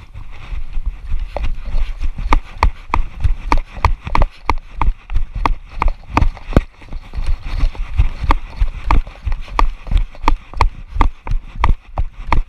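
Footsteps of the camera wearer jogging at a steady pace, about two and a half steps a second, each step a low thump with a click.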